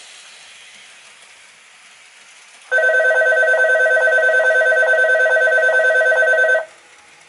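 An electric bell ringing rapidly and steadily for about four seconds, starting near three seconds in and cutting off sharply, like a railway station's departure bell played as a model railway sound effect.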